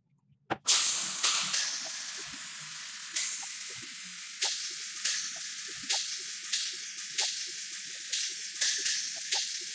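Gravity-feed paint spray gun hissing as it sprays 2K epoxy primer, in a string of short spurts that restart about every half second to second.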